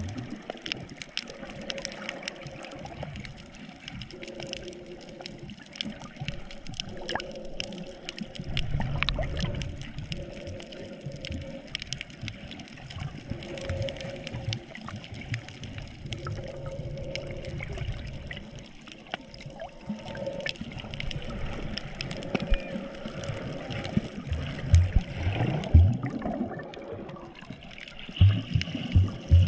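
Water gurgling and bubbling around a GoPro while snorkeling, with dense crackling clicks throughout and louder low thumps near the end.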